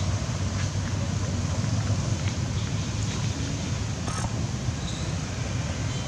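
Outdoor ambience: a steady low rumble with faint scattered clicks, and one brief call about four seconds in.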